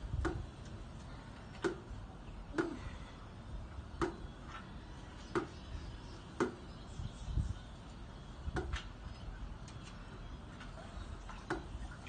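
Light hollow knocks with a short ring, roughly one a second at an uneven pace, from a long pool-cleaning pole being worked in the pool.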